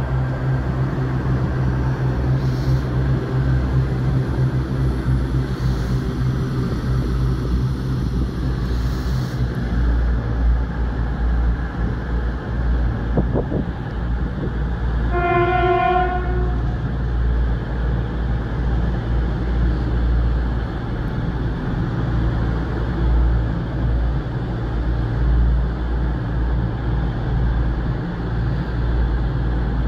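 Trains running at a station platform with a steady low engine rumble and hum. Just past halfway comes a single horn blast, one steady note lasting about a second and a half.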